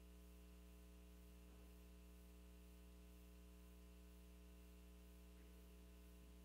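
Near silence: a steady low electrical hum with faint hiss, room tone from the recording chain.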